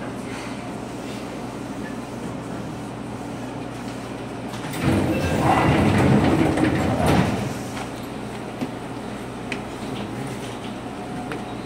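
Seibu 2000 series electric train standing at a station with a steady hum from the car's equipment. About five seconds in, the sliding passenger doors operate with a loud rush of noise lasting about two and a half seconds, followed by a few light clicks.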